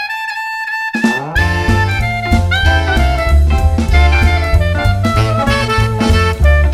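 Upbeat jazz music with brass or saxophone: a rising run of notes for about a second, then the band comes in with a steady bass and drum beat.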